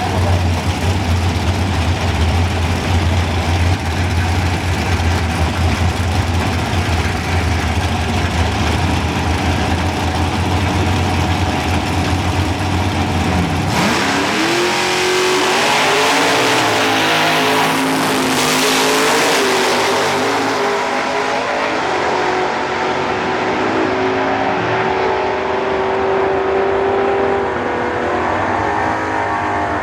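Drag race car engine idling with a heavy, steady low rumble. About halfway through it launches: the engine note climbs sharply, then rises and steps in pitch as the car accelerates away.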